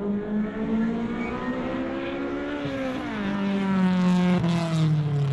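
Honda Civic EG's engine and aftermarket exhaust under acceleration. The pitch climbs, drops sharply about three seconds in, then falls away steadily, loudest near the end as the car passes. The exhaust has new headers and no leak.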